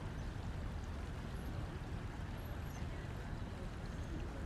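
Steady low rumbling background noise picked up by an outdoor security camera's microphone, with no distinct sound events.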